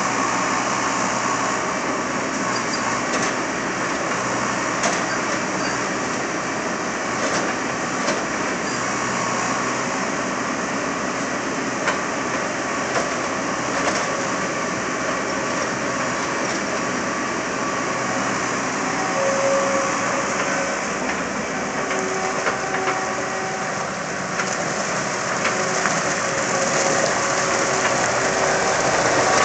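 Skid steer loader running steadily under work, with scattered light knocks and clunks.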